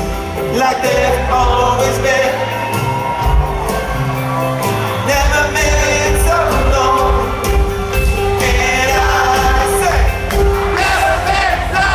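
Rock band playing live: electric guitar chords, bass and drums with a sung vocal line, heard loud through the PA in a large hall.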